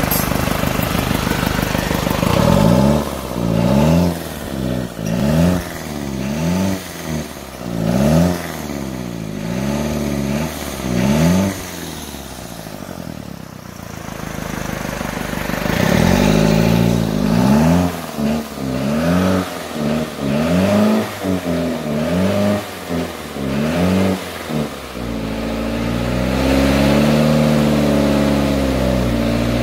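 Toyota 14B four-cylinder diesel engine being revved in repeated quick blips, each rising and falling back in about a second, with a spell at lower revs about halfway through. Near the end it is held at a steady raised speed.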